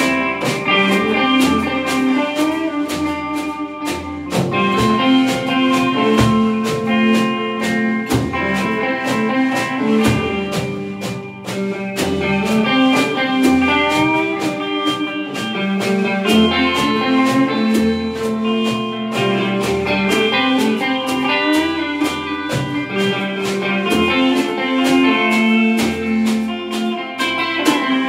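Rock trio playing live: two electric guitars and a drum kit, with bent guitar notes over a steady drum beat.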